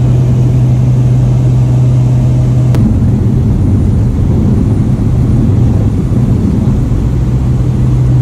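Light aircraft's engine and propeller droning steadily with a strong low hum, heard from inside the cabin. A sharp click comes about three seconds in, after which the hum turns rougher and less even for a few seconds before steadying again.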